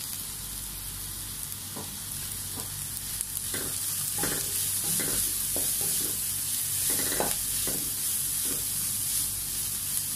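Sliced onions with crushed ginger, garlic, green chilli and curry leaves sizzling in oil in a non-stick kadai, sautéing until half-softened. A wooden spatula stirs and scrapes them, with a run of scraping strokes starting a few seconds in and a steady sizzle throughout.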